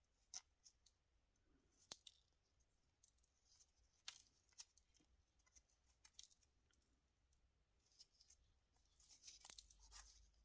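Faint scattered clicks and taps of small parts and tools being handled, with brief scratches and a longer scraping stretch near the end.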